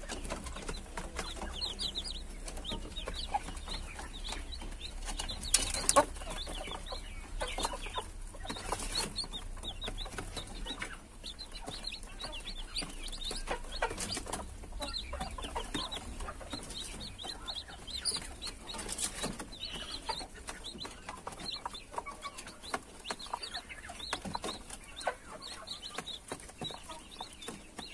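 A brood of chicks peeping continually in short high cheeps while they and a hen peck grain off a plastic feeding tray, with many light clicks of beaks tapping the plastic.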